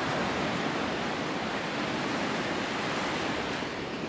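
Sea surf breaking and washing up a beach, an even rush of noise with no distinct wave crashes.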